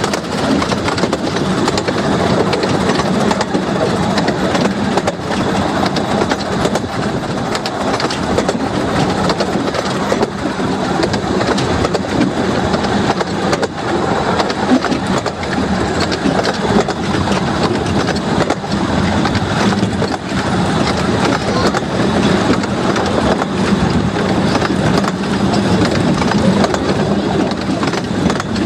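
15-inch gauge steam-hauled passenger train running steadily, heard from one of its carriages: the continuous clatter and rattle of wheels on rail and coaches, with many small clicks.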